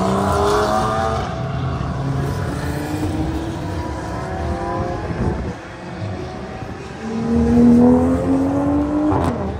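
Race car engines running hard, their pitch climbing in steps through the gears. A louder engine rises about two-thirds of the way in and drops sharply in pitch near the end.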